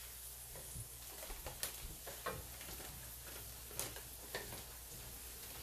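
Wooden spatula stirring vegetables in a nonstick wok, tapping and scraping the pan in a few irregular clicks, over a faint, steady sizzle.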